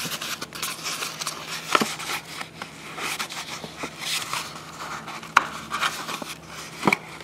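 Cardboard MRE carton and plastic ration-heater bag rustling and crinkling as they are handled, with a few sharp clicks and taps.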